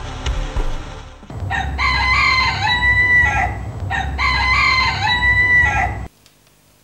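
A rooster crowing twice in a row, each crow about two seconds long, rising, holding and falling in pitch. The sound cuts off suddenly near the end.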